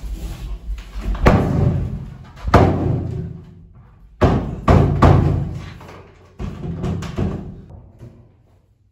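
Heavy bangs on a door, about eight at uneven intervals, each ringing out briefly, mixed with music; they die away near the end.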